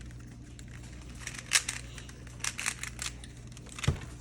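Rubik's cube being turned fast by hand: quick clusters of sharp plastic clicks from a loose, easy-turning cube, coming in spurts about a second apart.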